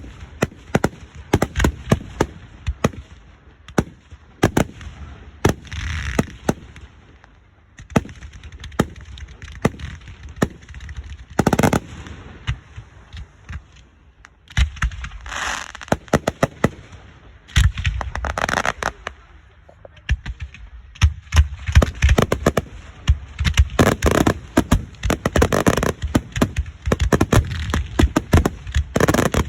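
Fireworks display: a rapid series of sharp bangs and crackles with several longer hissing, crackling bursts, growing denser and louder in the last third.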